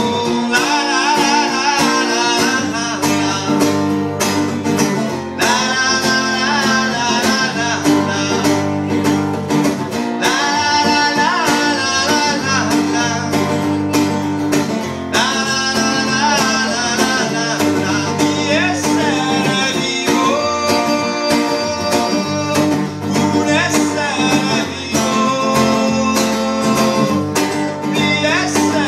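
Live song: a man singing over a strummed acoustic guitar.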